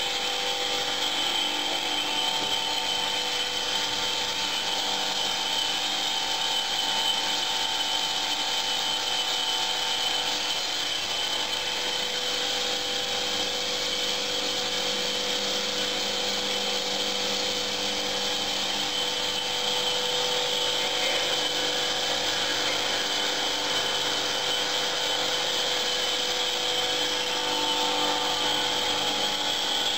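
Foam profile-pressing machine running steadily as its studded roller works a foam slab: an even hiss with a constant high whine and lower hums.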